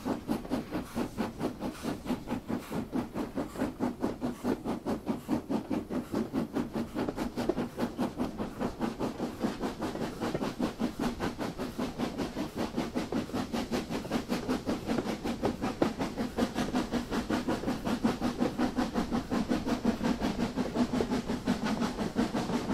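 Steam locomotive working, its exhaust beating in a steady rhythm of a few beats a second, with hiss.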